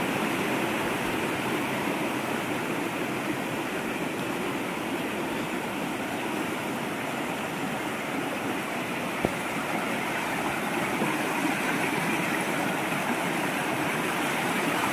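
Small mountain stream rushing steadily over rocks and stones in a narrow channel. One brief click about nine seconds in.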